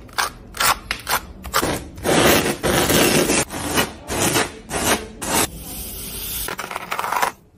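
Palette knife scraping and spreading thick, gritty texture paste, in a run of short strokes with one longer scrape about two seconds in. Near the end comes a steadier hiss as white granules are poured onto a pile of paste.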